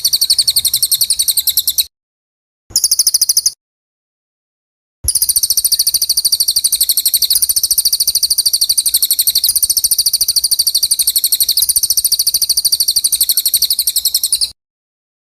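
A small songbird's high-pitched trill of fast, even pulses, played as song-tutoring (isian) audio for white-rumped shamas. It cuts off abruptly into dead silence twice, with a short burst about 3 s in before the long trill resumes at about 5 s and stops just before the end.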